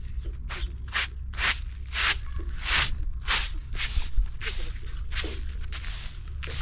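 Footsteps crunching on dry, gritty ground, a steady walking pace of about two steps a second.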